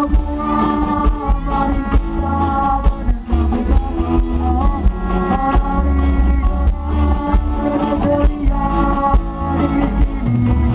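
Loud live band music with strong bass, guitar and singing.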